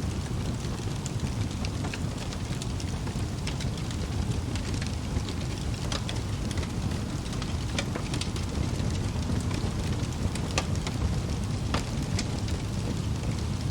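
Wood fire burning in a fireplace: a steady low rumble of flames with scattered sharp crackles and pops from the logs.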